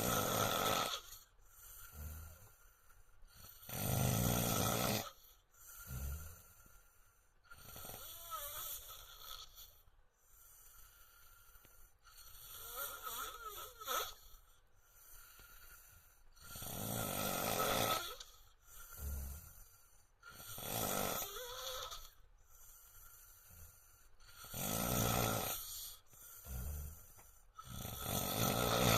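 A man's loud snoring, one long snore roughly every four seconds.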